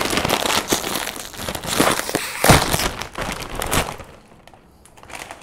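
Plastic chip bag crinkling loudly as it is handled and opened to get a chip out, for about four seconds before it dies down.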